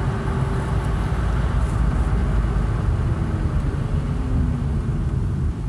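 A 2010 Honda Civic being driven, heard from inside the cabin: steady road and engine rumble with no brake squeal.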